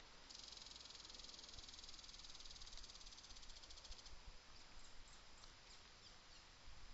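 A small animal's rapid, high-pitched buzzing trill, lasting about four seconds from just after the start, followed by a few faint high ticks.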